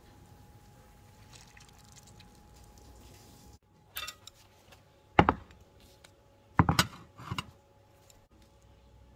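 Ceramic plates set down on a wooden board. A light clink about four seconds in is followed by two loud clunks about a second and a half apart, and then a smaller knock.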